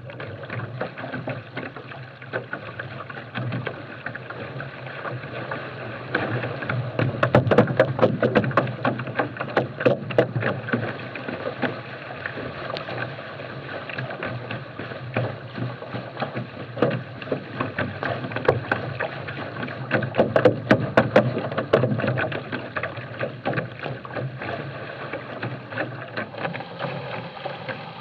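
Water rushing and slapping against a small catamaran's hull as it sails along, heard close from an onboard camera, with irregular splashes throughout. The water noise swells for a few seconds twice, about a quarter of the way in and again about three quarters of the way through.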